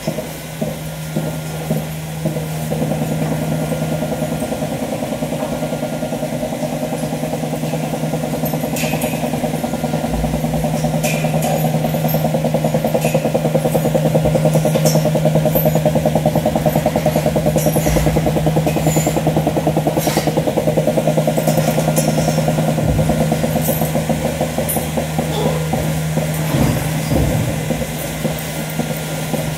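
Dairy milking machine running: a steady hum under a fast, regular pulsing, with scattered sharp clicks. The pulsing grows louder a few seconds in.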